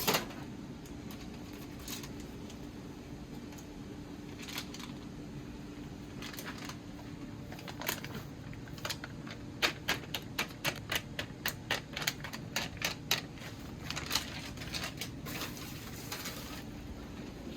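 Kitchen utensil clicking and knocking against a cooking pot, with a quick run of sharp taps, about two or three a second, in the middle stretch, over a steady low hum.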